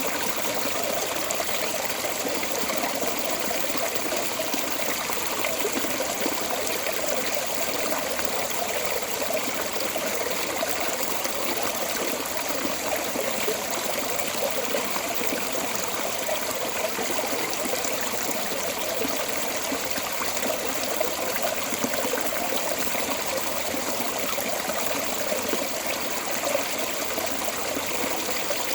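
Water flowing steadily out of a storm drain outlet, a constant rushing and splashing.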